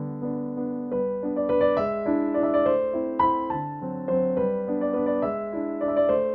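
Background piano music: a gentle melody of evenly paced notes over sustained chords.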